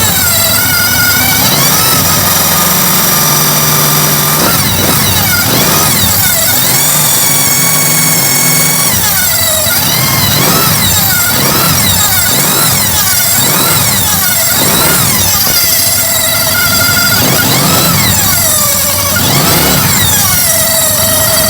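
Automatic scooter engine revved up and down again and again, with a whistle from its modified cooling fan rising and falling in pitch with each rev.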